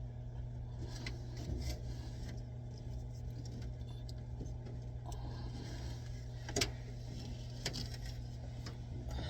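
Light clicks and knocks of plumbing fittings and tools being handled and tightened, the sharpest about six and a half seconds in, over a steady low hum.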